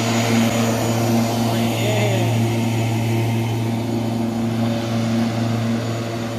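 Bosch corded electric lawnmower running with a steady, even hum as it is pushed across grass.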